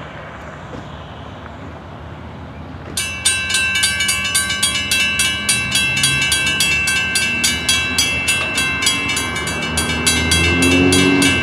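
Mechanical railroad crossing bells (a WC Hayes and a WRRS) start ringing about three seconds in, in fast, even metallic strokes of about five a second, the sign that the crossing has activated for an approaching train. Near the end a low train horn swells in under the bells.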